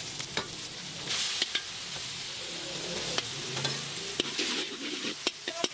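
Yellow noodles, prawns and bean sprouts sizzling in a hot steel wok, with a steady hiss and scattered sharp clicks of a metal spatula against the wok.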